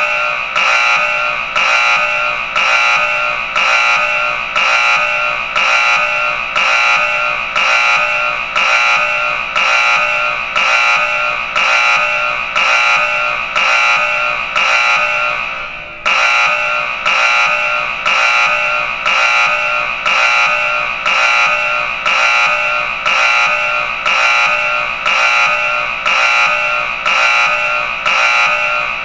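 Smoke alarm sounding: loud, high-pitched beeps repeating evenly, about three every two seconds, with a short break about halfway through before the beeping resumes.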